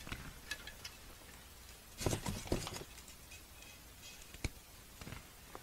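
Hands crumbling a chalky, powdery building material that breaks apart in the fingers: faint scattered crackles and crunches, with a denser burst of crunching about two seconds in and a few sharp ticks near the end.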